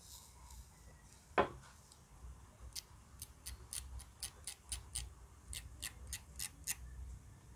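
A sharp click about a second and a half in, then a run of light, high ticks, about four a second, for some four seconds. They come as the series-built Clapton coils are test-fired on a Doomsday V2 mechanical mod and worked with tweezers while they glow.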